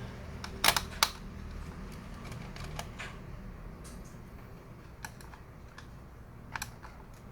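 Sharp clicks and light taps from handling a ThinkPad laptop's parts and tools during disassembly: two loud clicks around a second in, then scattered fainter ticks.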